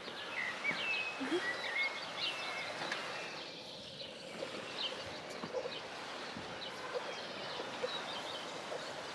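Small birds chirping, with short quick calls and rising and falling whistles, most of them in the first couple of seconds, over a steady outdoor background noise.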